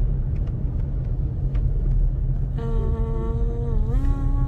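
Steady low rumble of a car driving, heard from inside the cabin. Over the last second and a half a held, pitched, voice-like tone sounds and rises a little in pitch near the end.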